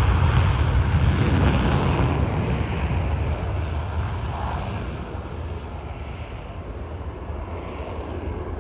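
Jet engines of four Blue Angels F/A-18 Super Hornets at takeoff power as the jets roll down the runway and lift off in formation. The noise is loudest at the start and fades steadily as they pull away.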